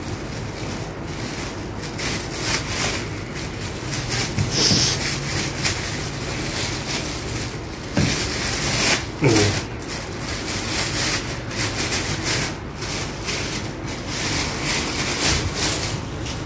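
Clear plastic packaging crinkling and rustling in the hands as it is peeled off a flexible gorilla tripod.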